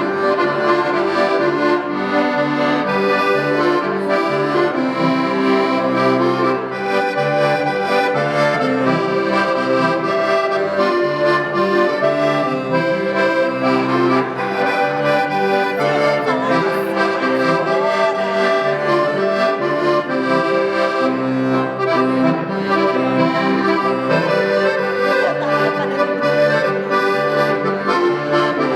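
Accordion (gaita) playing a traditional tune: a melody over a repeating pattern of bass notes and chords.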